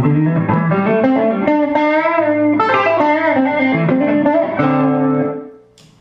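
Electric guitar played through a Leslie 147 rotary speaker cabinet: a phrase of picked notes and chords, some of them wavering in pitch, that stops about five seconds in and dies away, followed by a short click near the end.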